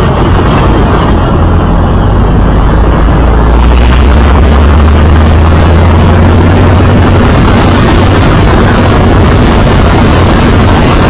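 Open-wheel race car's engine running loud and close to the car-mounted microphone, a steady low drone with a rough noisy layer over it.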